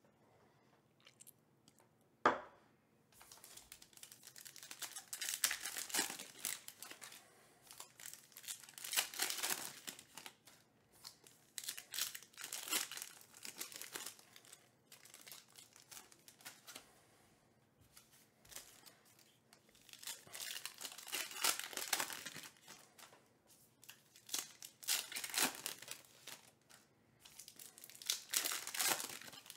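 Plastic trading-card pack wrappers being torn open and crinkled by hand, in rustling bursts every few seconds. A single sharp knock comes about two seconds in.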